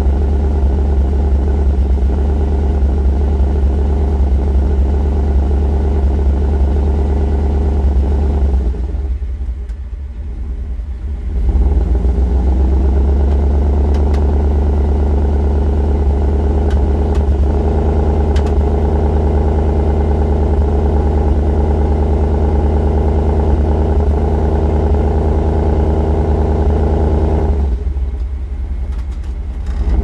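Chevy Suburban V8 exhaust running with a cylinder 1 misfire, a steady low uneven 'bup, bup, bup' pulse. The level dips briefly about nine seconds in and again near the end. The misfire comes from a cracked number one spark plug.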